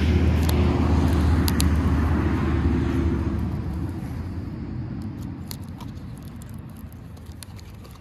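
A road vehicle going by, its steady low engine and tyre rumble fading away over the second half, with a few light clicks of paper being handled.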